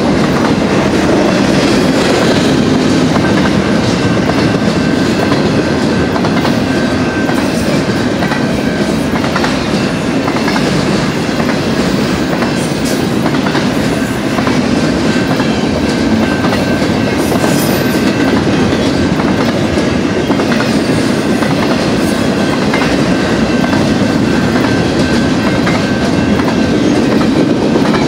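Double-stack container well cars of a BNSF intermodal freight train rolling steadily past, wheels clattering over the rails.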